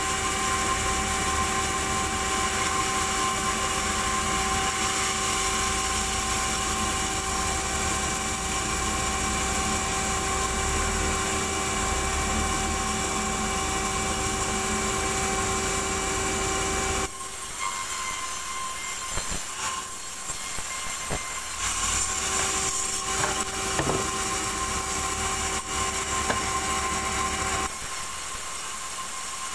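Band sawmill blade sawing lengthwise through a small log: a steady whine of several level tones over a rushing noise. About halfway through the cut finishes and the sound drops away, leaving the saw running with scattered knocks as the cut slab is handled.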